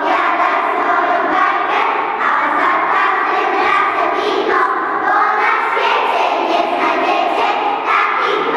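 A large group of preschool children singing together in unison, loud and continuous, with no accompaniment.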